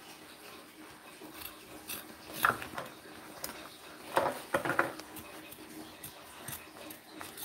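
Excess upholstery covering being cut off the edge of an armrest: one sharp cut about two and a half seconds in, then a quick run of three or four cuts a little past the middle, with light rustling and handling of the material between.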